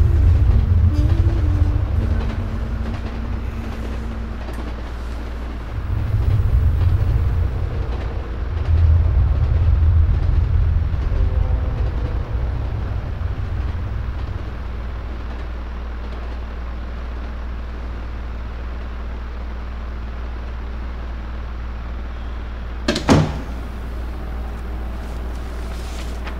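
Low rumbling ambience that swells and fades a few times over a steady low hum, with one sharp click about 23 seconds in.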